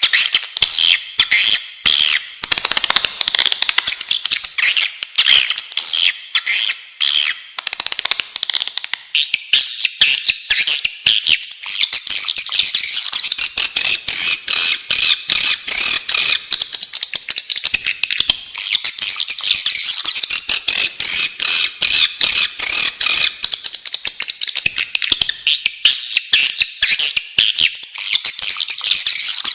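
Swiftlets chattering nonstop in rapid, high-pitched clicking trills: a recorded swiftlet lure call of the kind played to draw the birds into a nesting house. About a third of the way in the chatter becomes more even and higher.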